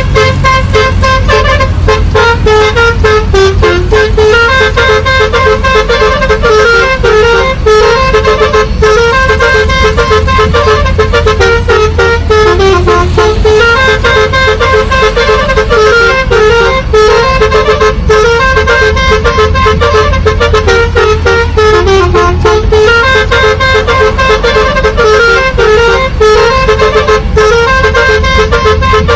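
Basuri telolet bus horn, an electric multi-tone horn, playing a tune of quick stepping notes that repeats over and over without a break, over a steady low rumble.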